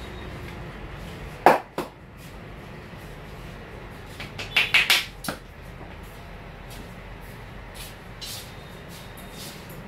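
Sharp slaps of a barber's hands on the body during a massage: two strikes about a second and a half in, a quick run of four or five about two seconds later, and a few fainter slaps near the end.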